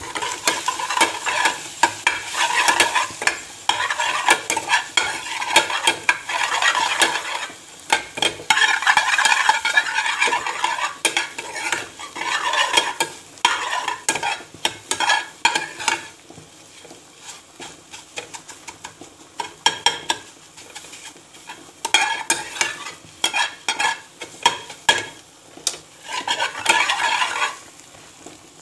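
A metal ladle scraping and clinking against a steel pan as eggs frying in oil are stirred and broken up, over the sizzle of the hot oil. The scraping comes in busy spells and eases off for a few seconds past the middle before starting again.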